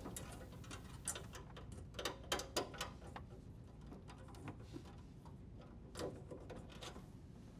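Faint, irregular clicks and light rustling of hands handling and positioning a corrugated plastic dishwasher drain hose, with a small cluster of clicks about two seconds in and another near six seconds.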